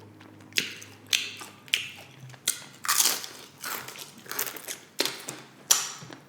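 Crunchy nacho chips being bitten and chewed, a run of sharp crunches about two a second.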